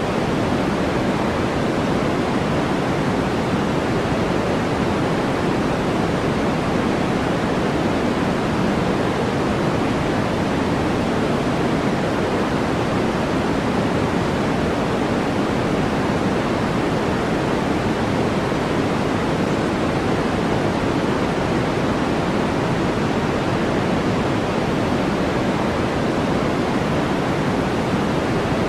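Synthetic white-noise track: a steady, unchanging hiss that is fuller in the lower middle range than in the highs.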